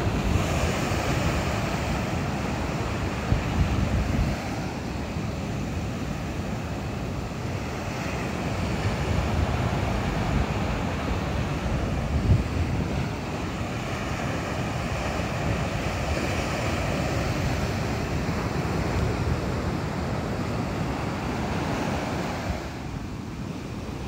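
Ocean surf breaking and foam washing up the beach, swelling and easing in a steady wash. Wind buffets the microphone in a low rumble. The sound falls away somewhat near the end.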